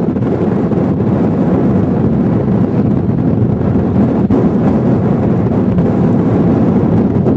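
Engines of a field of small race cars running together on the starting grid, a dense steady drone.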